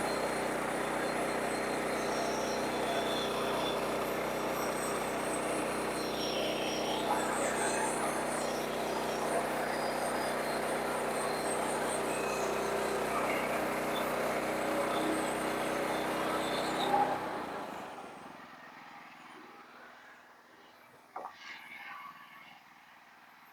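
Sawmill engine running steadily, then shut off about seventeen seconds in, winding down to quiet. A short knock follows a few seconds later.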